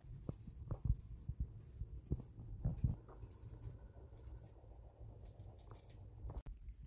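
Outdoor ambience: a low wind rumble with scattered soft knocks and rustles, several in the first three seconds, fewer after that.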